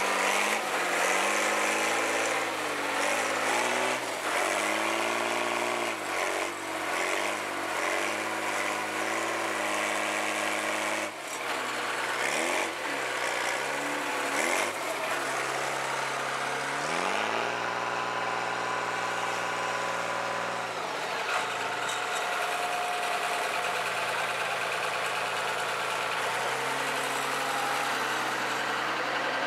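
Diesel engine being revved up and dropped back again and again, with one longer hold at high revs about halfway through before settling back.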